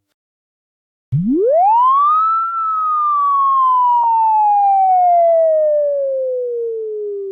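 Synthesized sound effect for a graph appearing on screen. About a second in, a single tone swoops quickly up from very low, then glides slowly down in pitch and fades near the end.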